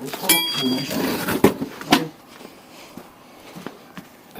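Metal tools and small valve parts being handled: a few sharp clinks and knocks, one with a brief metallic ring, in the first two seconds, then only faint ticks.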